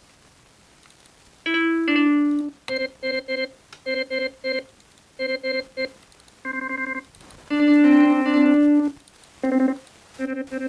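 Keyboard instrument notes played from an Akai LPK25 USB MIDI keyboard through a software sound. After a short pause comes a two-note figure, then short notes repeated in groups of three, a longer held chord, and a quick rising run of notes at the end.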